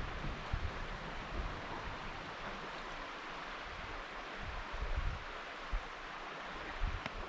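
River water flowing, a steady rush, with low thumps of wind buffeting the microphone.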